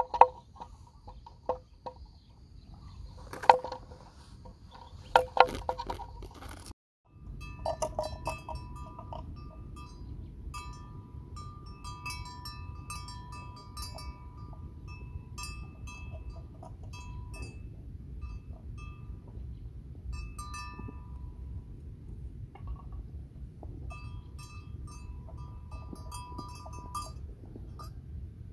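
Livestock bells on water buffalo clanking sharply as the animals move. After a brief drop-out about seven seconds in, fainter bell tones ring on and off over a steady low rumble of wind on the microphone.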